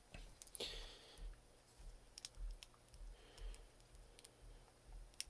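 Faint scattered clicks and a brief rustle of hands handling an action figure's plastic and cardboard packaging.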